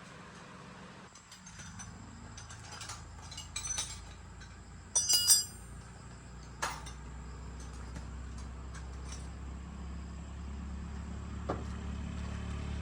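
Metal parts and tools clinking and clicking, loudest about five seconds in, over a low steady hum that grows louder toward the end.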